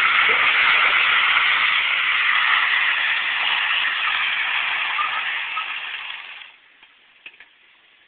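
Nissan Altima sliding on wet pavement: a loud, even hiss of tyres and engine that fades slowly over several seconds, then drops away abruptly about six and a half seconds in, leaving a few faint clicks.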